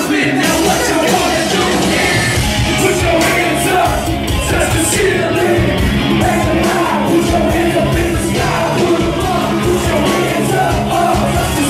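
Live hip-hop at club volume: rappers shouting vocals into microphones over a loud, bass-heavy beat.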